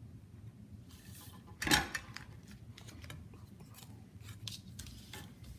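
Drafting tools handled on a tabletop: a steel ruler and a plastic drafting triangle are shifted and picked up. There is one sharp clack about a second and a half in, then a run of light clicks and taps.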